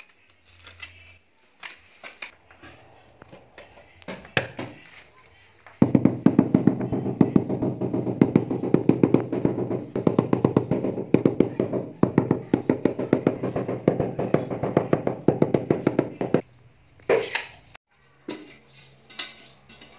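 Rubber mallet tapping a ceramic floor tile down into its mortar bed: a rapid, steady run of taps that starts suddenly about six seconds in and stops suddenly about ten seconds later.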